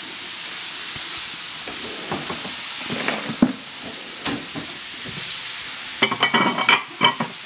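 Ground-beef burger patties sizzling steadily on high heat in a cast iron pan, with knocks and scrapes as a spatula lifts and turns them. A quick run of metallic clinks and clatter comes about six seconds in.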